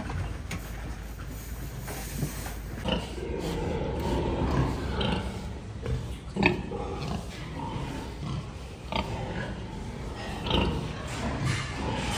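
Pigs grunting in short irregular calls, with a few sharp knocks among them.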